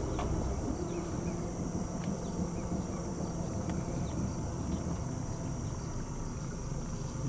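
Steady, high-pitched insect chorus, with a constant low background noise beneath it.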